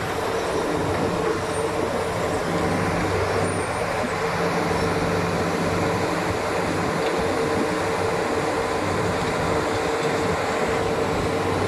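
Tracked demolition excavators running steadily, their diesel engines and hydraulics making a constant hum, with a dust-suppression water-mist fan blowing close by. No sharp impacts stand out.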